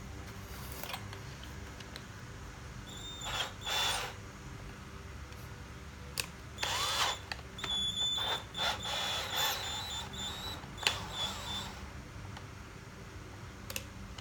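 DeWalt DCD700 cordless drill run in several short bursts with a high motor whine, drilling into concrete with a wood bit that does not bite in.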